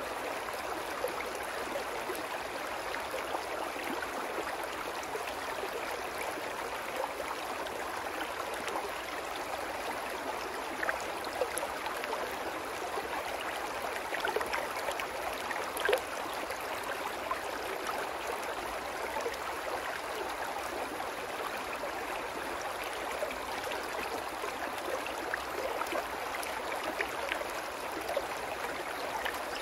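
Shallow rocky brook babbling over stones: a steady rush and gurgle of running water, with now and then a brief, brighter splash.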